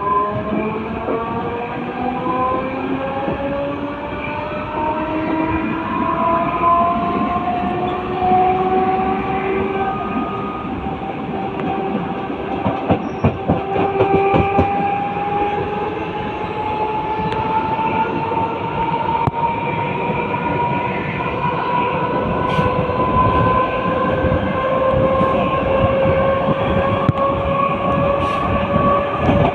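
Mumbai local electric train running, its motor whine rising slowly and steadily in pitch as the train picks up speed, over the rumble of the coach. Wheels click over rail joints, more often in the second half.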